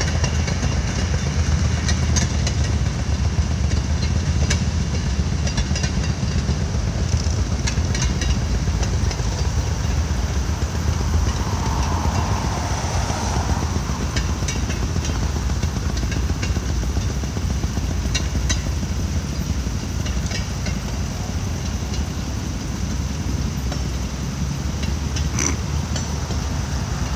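Railroad cars rolling past on the track: a steady low rumble, with occasional pairs of clicks as wheels cross rail joints.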